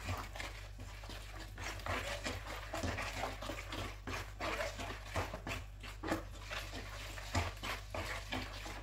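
A hand squelching and squishing through a wet marinade of lemon juice, oil and ground spices in a plastic bowl, in many short, irregular wet sounds.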